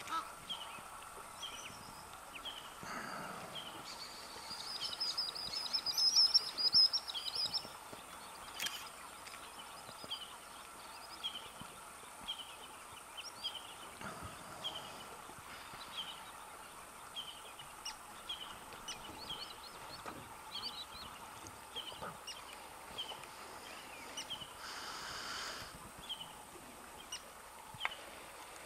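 Outdoor natural ambience filled with wild birds: a short high chirp repeats about once a second, and a louder run of rapid high twittering comes from about four to eight seconds in.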